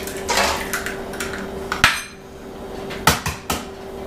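Eggs being cracked on the rim of a stainless steel mixing bowl: one sharp knock of shell on metal about two seconds in and three quick knocks near the end, with softer shell-handling noises in the first half.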